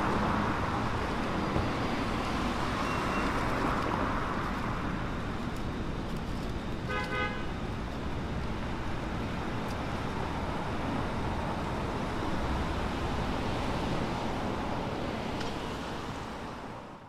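Street traffic noise, with a brief car horn toot about halfway through. The sound fades out at the end.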